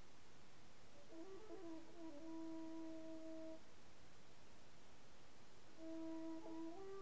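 Silver transverse flute playing slow, low notes: a short ornamented run about a second in leads into a long held note. After a pause of about two seconds, another held note begins and steps up near the end.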